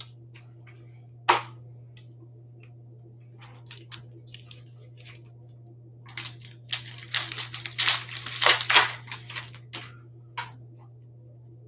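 Foil wrapper of a baseball-card pack being torn open and crumpled by hand: a few seconds of dense crackling rustle starting about halfway through, after a single sharp tap about a second in.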